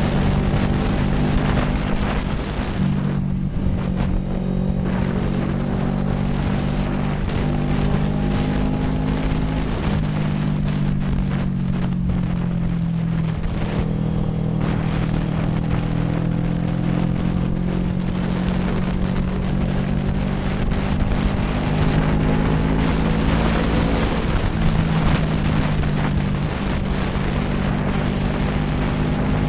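CFMoto NK400 parallel-twin motorcycle engine running under a steady rush of wind on the microphone. Its note shifts up and down in pitch a few times.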